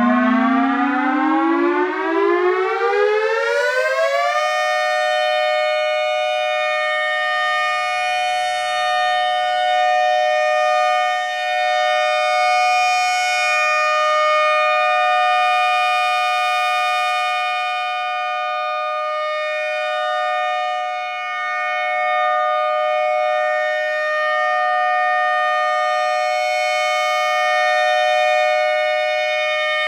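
ACA Alertronic AL-6000R electronic outdoor warning siren sounding its steady alert tone. It winds up in pitch over the first four seconds or so, then holds one steady two-note chord at full level, wavering only slightly in loudness.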